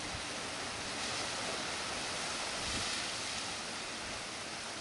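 Steady rushing outdoor ambience of sea surf and wind, swelling slightly about a second in and again around three seconds.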